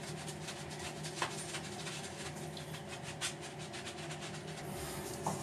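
Faint, quick scratchy strokes of a bristle brush scrubbing a wet corgi's fur, over a steady low hum.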